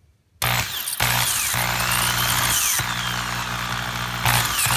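Power drill drilling out the die-cast metal rivet posts of a toy car's base. It starts about half a second in and runs steadily, easing off briefly a few times, with a high squeal of the bit cutting metal rising and falling above the motor.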